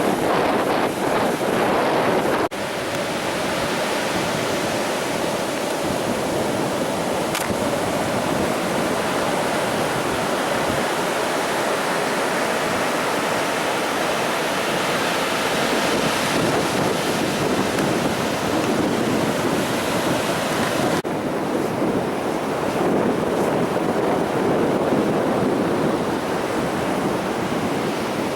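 Ocean surf washing steadily on a beach, with wind on the microphone; the level drops abruptly about two and a half seconds in and the sound shifts again about 21 seconds in.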